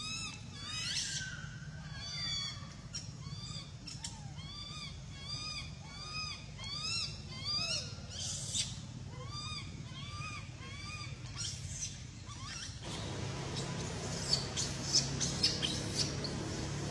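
Infant macaque crying for milk: a long run of high, squealing cries, each arching up and down in pitch, coming one or two a second. About thirteen seconds in the cries stop and a steady low hum with short high chirps takes over.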